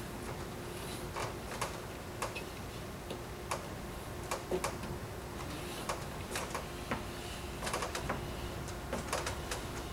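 Irregular light clicks and crackles, roughly one or two a second, as thin engineered reflector material is pressed by fingertip into the groove of a ceiling light fixture's metal extrusion.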